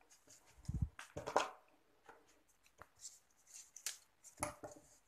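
Hands pressing a twisted rope of crepe paper down onto a sheet of card, with scattered rustles and light taps, and a dull knock a little before the first second.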